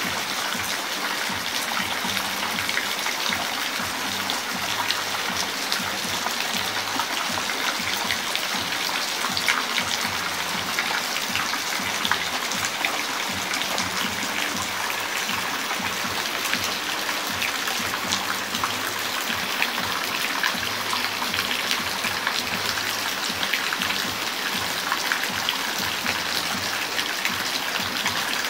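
Steady rain falling, with many small drop impacts ticking through an even hiss.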